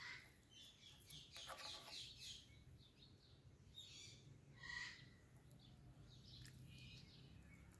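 Faint, soft chirps and short calls from an Indian ringneck parrot, a few scattered notes over a low steady hum.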